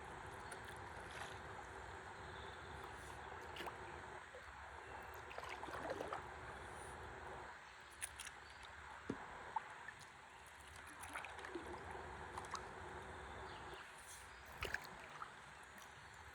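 River water flowing and lapping gently around a stand-up paddleboard, with scattered light clicks and small splashes; the water swells briefly about five seconds in.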